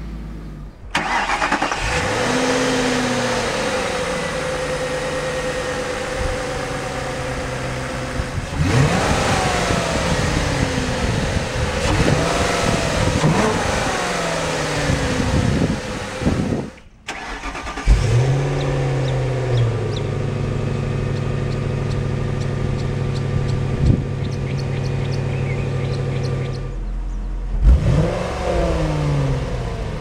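A 2002 Ford Thunderbird's 3.9-litre V8 being revved in neutral, the revs rising and falling again and again in throttle blips, with longer stretches held at a steady raised speed. The sound cuts off briefly three times between passes.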